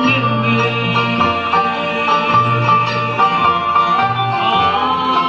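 Bluegrass band playing live: banjo, acoustic guitar, upright bass, dobro and mandolin together, with the upright bass plucking steady low notes underneath.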